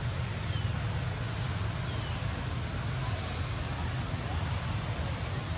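Steady outdoor background noise: a low rumble with a hiss above it, with no distinct calls or knocks standing out.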